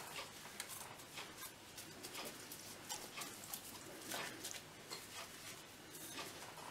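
Faint, irregular wet squishing and scraping of a gloved hand rubbing a green garlic, ginger, chilli and coriander paste onto raw whole chickens in a metal bowl, with the paste scraped off the rim of a ceramic ramekin.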